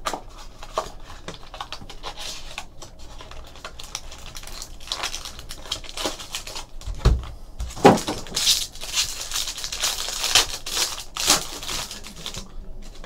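Hands opening a cardboard box of hockey trading cards, with scattered clicks and scrapes of cardboard. From about eight seconds in, a foil card pack crinkles and tears in a dense run of crackles.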